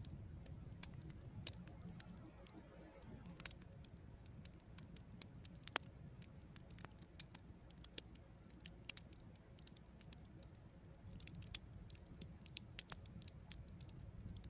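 Campfire crackling softly: irregular small pops and snaps over a faint low rumble.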